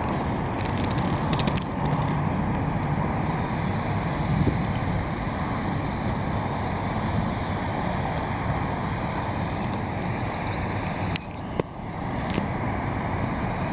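Steady rumble of distant engines, with a short dip and a click about eleven seconds in.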